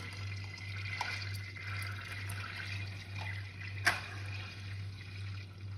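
Melted butter sizzling and bubbling gently in a saucepan over the heat, a faint steady hiss over a low hum. A single sharp click about four seconds in.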